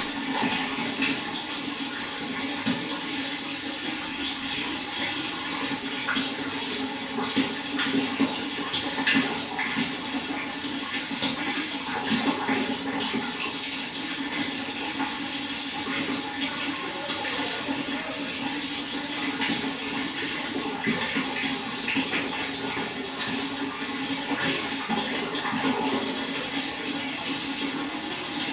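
Running water splashing and trickling steadily, a continuous, even rush with small irregular splashes throughout.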